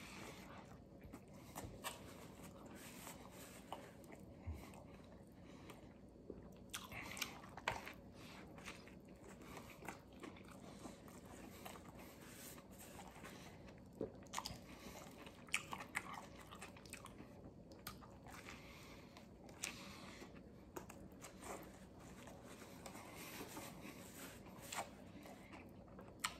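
A man biting into and chewing a mouthful of vegetarian sub sandwich: faint crunching and mouth clicks at irregular moments.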